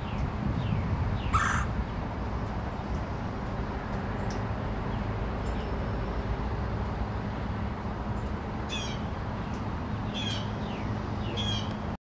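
Male red-bellied woodpecker calling: a loud harsh call about a second and a half in, then three short rolling churr calls near the end, over a steady low rumble.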